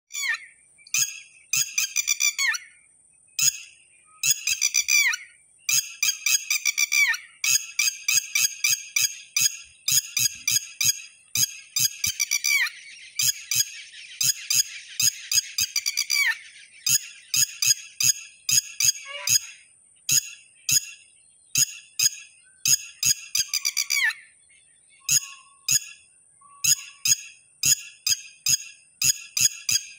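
Red-wattled lapwing calling almost without a break: rapid runs of sharp, shrill notes in bouts of one to several seconds, with short pauses between.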